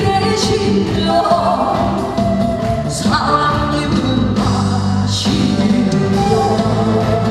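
Trot song performed live: band accompaniment with a singing voice carrying the melody.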